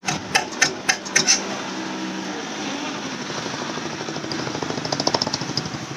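Old Belarus tractor's diesel engine running rough after long disuse, smoke puffing from its exhaust stack, with several loud sharp knocks in the first second and a half and a fast rhythmic clatter near the end.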